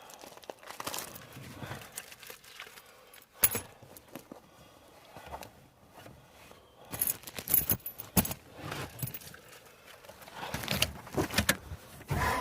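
Light metallic jangling and clicking, like keys or buckle hardware being handled, in short bursts with a sharp knock about three seconds in.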